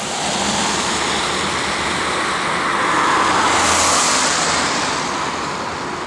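A road vehicle driving past close by: a steady rushing noise that swells to a peak about three to four seconds in and then fades.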